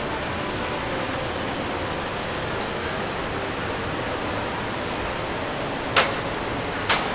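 Steady rushing background noise with no distinct tones, broken near the end by two sharp clicks just under a second apart.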